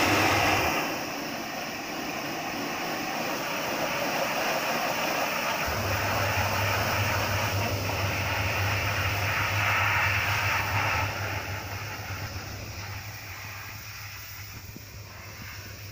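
High-pressure hot-water jet from a Kärcher HDS 9/18 pressure washer hissing against a diesel locomotive's engine block, fading near the end. A low steady hum joins about six seconds in.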